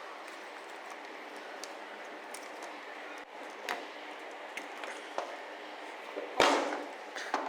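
Scattered light clicks of metal grinder parts being handled, then a sharp knock about six seconds in and a smaller one near the end, as the new armature is fitted into the angle grinder's field coil housing.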